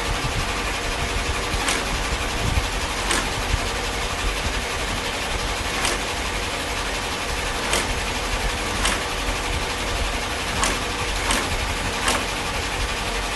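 Shoe-making machinery running with a steady mechanical hum, with a sharp click every one to two seconds.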